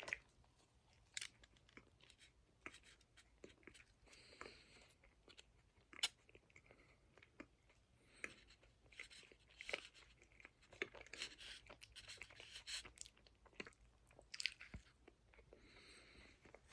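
Faint, irregular chewing and mouth sounds of someone eating a Hostess orange cupcake, with scattered small clicks.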